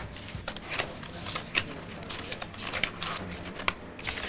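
Paper rustling in short, irregular rustles as sheets of fingerprint record forms are handled and leafed through.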